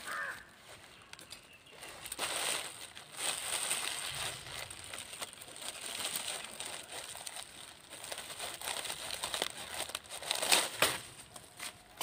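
Dry areca palm leaf broom rustling and brushing over bare gravelly soil, in irregular strokes with the loudest sweeps about ten and a half seconds in.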